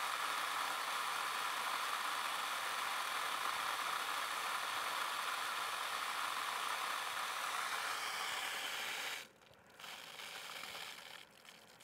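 Steady rush of water flowing out through the well's plumbing while the well pump runs. It cuts off sharply about nine seconds in, then comes back fainter for a moment before dropping again.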